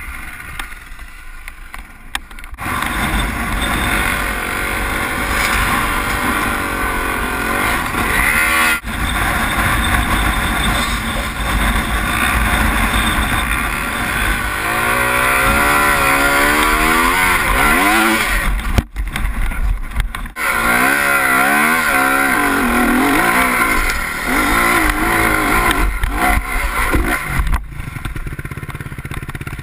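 Honda CRF dirt bike's four-stroke engine revving up and down hard, its pitch rising and falling repeatedly as it claws up a steep loose climb, with rumble and wind from the helmet mount. The sound breaks off abruptly a few times between clips.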